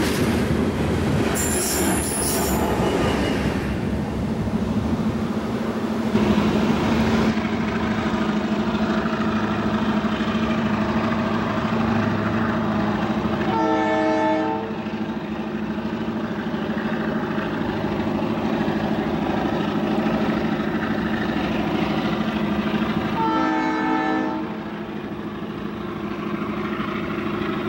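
Freight cars rolling past with wheels clicking on the rails and a brief high wheel squeal near the start. Later a locomotive's multi-chime air horn sounds two short blasts, one about halfway through and one near the end, over a steady low hum.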